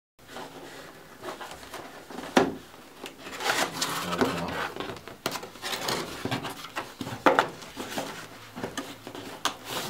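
Cardboard shipping box being handled by hand: flaps and inner boxes rustling and rubbing, with a few sharp knocks, the loudest about two and a half seconds in and again about seven seconds in.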